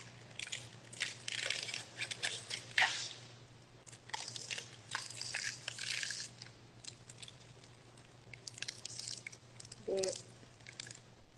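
Close mouth sounds of someone biting and chewing a red, white and blue ice pop, with crunching of the frozen ice, in bursts through the first six seconds or so, then scattered clicks. A brief voiced hum comes about ten seconds in.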